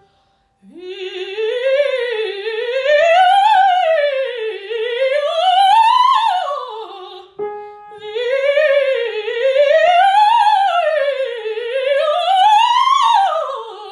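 A woman's operatic voice singing a vocal warm-up exercise with wide vibrato: two long phrases, each climbing and falling in waves to its highest note near the end before settling back down.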